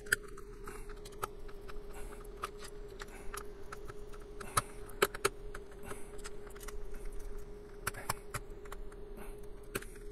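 Irregular small clicks and ticks of a screwdriver turning out the tiny screws on the back of a plastic inline on-off switch, then the loose screws, cord and plastic housing being handled, over a faint steady hum.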